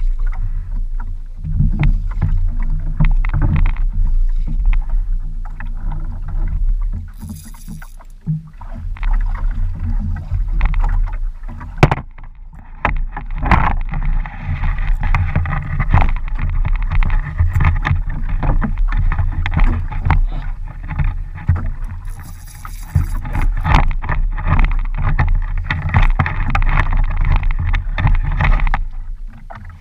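Water sloshing and slapping against the hull of a small bamboo-outrigger boat, with a steady low rumble of wind on the camera microphone and irregular knocks and creaks from the boat and tackle while a fish is fought on a spinning rod.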